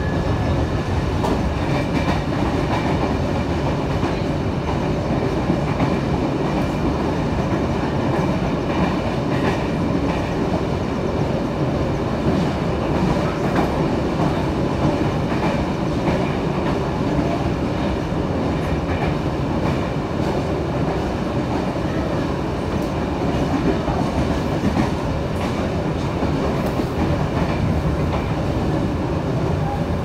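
Trensurb electric commuter train running at speed, heard from inside the carriage: a steady rumble of wheels on rail with scattered faint clicks from the track.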